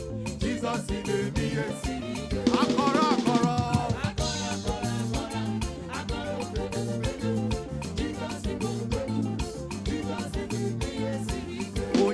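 Gospel praise music with a steady beat: a band groove with drums and bass, and a short sung run about two and a half seconds in.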